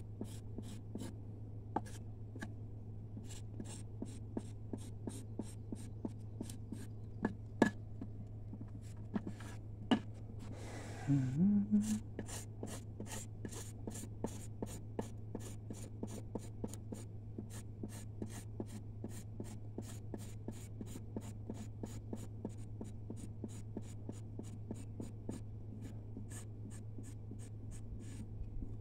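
A knife blade scraping sisal leaves lengthwise against a wooden board, stripping the green pulp off the fibres. The short rasping strokes come unevenly at first, with a couple of louder knocks, then settle into a steady run of about three a second from about twelve seconds in. A brief voice-like sound rises about eleven seconds in.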